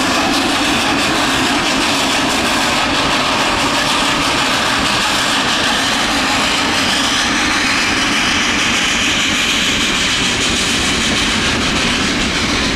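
Western Maryland Scenic Railroad steam locomotive No. 734, a 2-8-0, passing close by under load, loud and steady. Freight cars roll by after it near the end.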